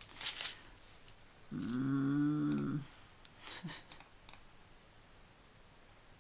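A small plastic bag of diamond-painting drills crinkling and clicking as it is handled, with a low hummed voice sound about a second and a half in, lasting about a second.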